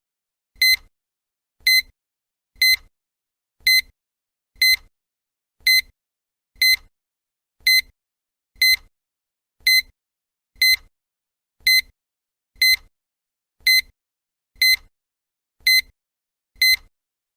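Countdown timer beep: a short, high electronic tone repeated once a second, marking off each second of the count.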